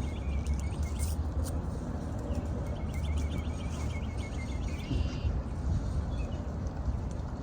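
A small bird singing a trill of quick, evenly repeated high chirps, twice: once right at the start and again about three seconds in. Wind rumbles on the microphone underneath.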